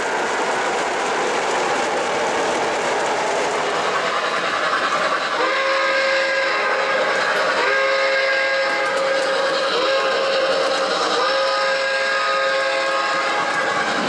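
O-gauge model steam locomotive's sound-system steam whistle, a chime of several tones sounding together, blown in four blasts, the longest about two seconds. It sounds over the steady running noise of the model train on the track, which is heard alone for the first five seconds.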